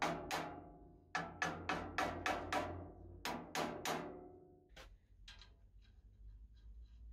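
About a dozen mallet blows on the cast-iron arm of a Morso mitre guillotine. They come in quick runs of two, six and three, each ringing out briefly, with a last lighter tap about five seconds in. After that there is faint handling of metal parts.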